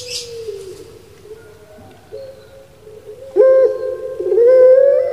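Puter pelung (Barbary dove) cooing. A faint coo trails off at the start, with a brief crackle near the start. From about three and a half seconds in comes a loud, drawn-out coo that shifts and bends in pitch.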